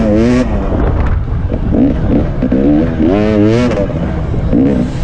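Dirt bike engine revving hard under riding, its pitch climbing and dropping several times with throttle and gear changes.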